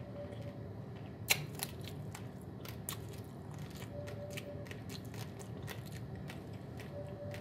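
Dry, uncooked basmati rice being chewed: irregular sharp crunches and crackles of the grains breaking between the teeth, the loudest about a second in.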